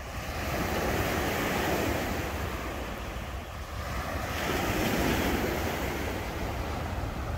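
Surf washing onto a beach, two waves swelling in and falling away, the second about four seconds after the first, with a steady low rumble of wind on the microphone.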